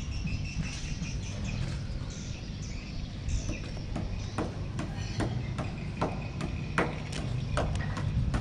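Sharp, irregular knocks of hammer blows from boatyard work, coming more often from about halfway through, over a low steady rumble.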